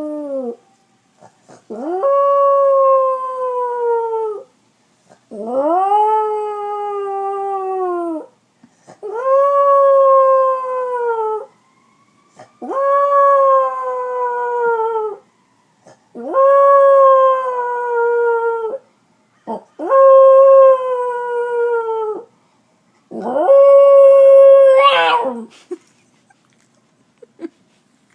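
A dog howling: seven long howls, about one every three and a half seconds. Each swoops up at the start and then slides slowly down in pitch. The last howl breaks into a wavering warble as it ends.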